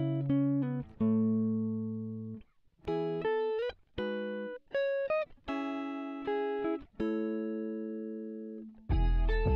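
Background music: a slow melody of single plucked, guitar-like notes, each left ringing. Fuller, heavier chords with bass come in near the end.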